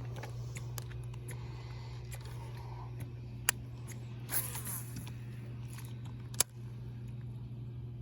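A steady low hum, with a few sharp clicks and a brief rush of noise about four and a half seconds in.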